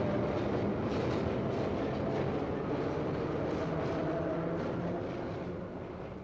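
Four-wheel-drive vehicle driving on a muddy dirt track: its engine running steadily under road noise, fading out from about five seconds in.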